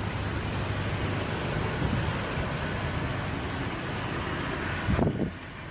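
Steady rushing outdoor background noise, with a brief thump about five seconds in, after which the noise drops and sounds duller.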